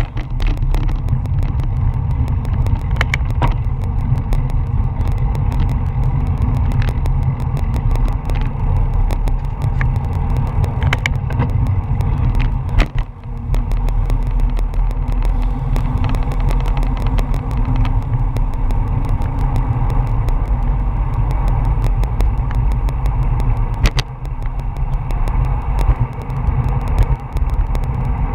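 Wind buffeting the microphone of a bike-mounted action camera, with road and tyre rumble from a road bike riding in a pack of cyclists. The low rumble is loud and steady, with a few sharp clicks scattered through it.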